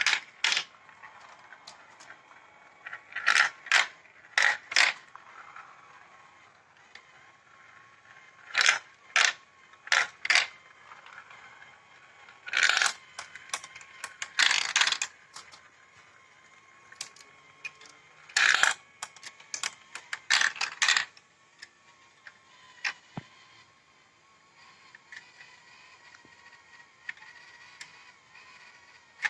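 Glass marbles clacking and rattling along plastic marble-run track, in bursts of quick sharp clicks every few seconds. A faint steady whine lies underneath.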